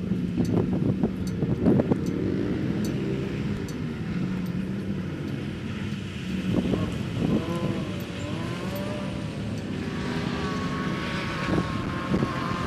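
A vehicle engine running steadily, with a low even note. Its pitch wavers up and down briefly around the middle, and a higher whine joins near the end.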